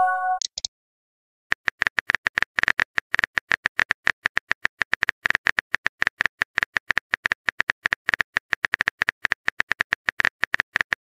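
Simulated phone-keyboard typing clicks: a rapid, uneven run of many short taps a second, starting about a second and a half in. At the very start a short electronic message chime fades out.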